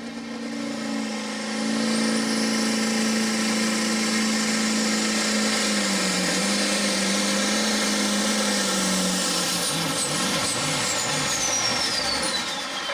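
Pro Farm pulling tractor's turbocharged diesel engine running hard under load as it drags a weight-transfer sled, with a high turbo whine above it. The engine note sags about six seconds in, and the engine lets off near nine seconds. The turbo whine then falls away steadily.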